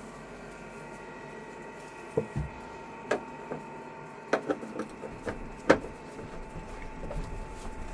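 Diesel heater running with a steady whirring hum and a faint constant whine, with scattered sharp clicks and taps throughout.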